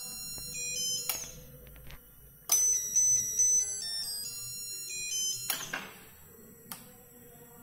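Household musical buzzer playing an electronic melody of high, stepping beep notes, with a new phrase starting several times. It is set off by the touch sensor being touched: the PLC has registered the sensor's signal and switched on the buzzer.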